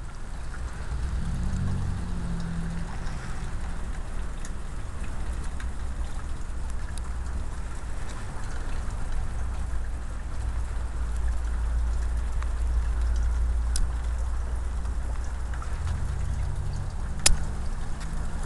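Steady outdoor hiss and patter of heavy wet snow falling, over a low rumble. A vehicle engine hums briefly near the start and again near the end, with a sharp click near the end.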